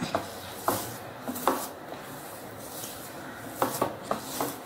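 Hand kneading crumbly whole-wheat biscuit dough in a bowl: soft rubbing and pressing, with a few light knocks against the bowl, several of them close together near the end.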